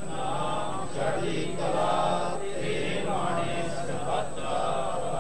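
Chanted Sikh prayer: voice reciting in a sing-song cadence, phrase after phrase, each about a second long.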